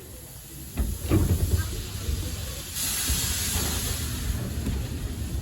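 Narrow-gauge steam locomotive hissing steam over a low rumble. A loud hiss sets in suddenly just under three seconds in.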